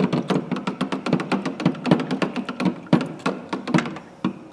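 Rapid, irregular tapping and clicking of a utensil stirring baking soda into water in a container, to dissolve it.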